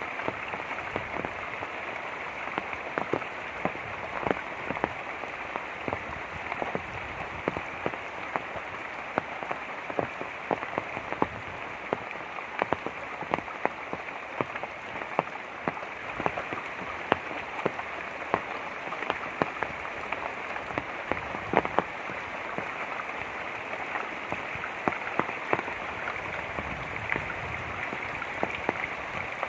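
Light rain falling, with many single drops striking at irregular moments over a steady hiss.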